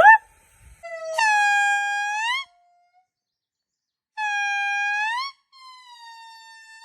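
Monkey giving long, pure-toned hoot-like calls, each held on a steady pitch and bending upward at the end: one about a second in, a second about four seconds in, then a fainter falling tone.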